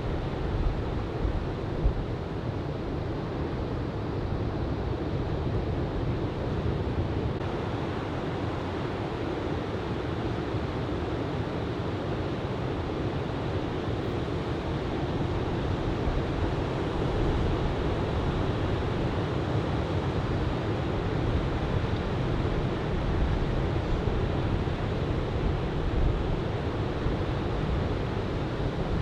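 Steady rush of ocean surf breaking, with wind buffeting the microphone and growing a little louder about halfway through.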